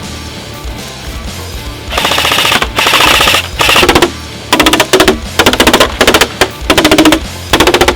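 Echo 1 Red Star LMG airsoft electric gun (AEG) firing on full auto: a long burst about two seconds in, then a string of short, rapid bursts.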